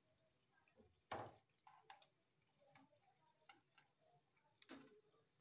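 Faint, scattered crackling ticks of jalebis frying in oil in a steel pan on a low flame. A louder click comes about a second in and another near the end.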